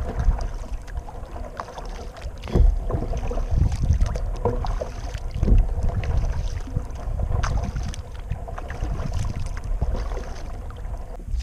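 Kayak paddling: a double-bladed paddle dipping and splashing in calm water, with water dripping off the blade and irregular knocks a few seconds apart, over a low rumble.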